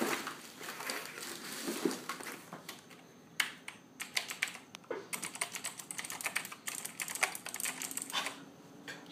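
Cherry MX Blue mechanical key switches on a Corsair K95 RGB keyboard clicking as keys are pressed, in quick irregular runs of sharp clicks that come densest after about three seconds.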